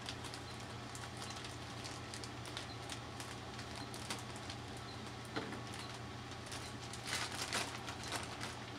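Plastic spawn bag of grain crinkling and rustling in short bursts as it is cut open with scissors and handled, with a louder flurry near the end. A steady low hum from the laminar flow hood's fan runs underneath.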